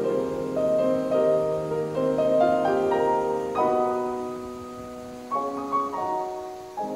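Background piano music: slow notes and chords that strike and ring on as they fade.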